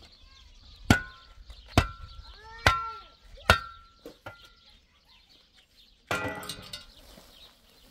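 Steel shovel blade striking stony, gravelly ground four times, about a second apart, the blade ringing briefly after each blow. About six seconds in comes a scraping rush as the shovel scoops loose gravel.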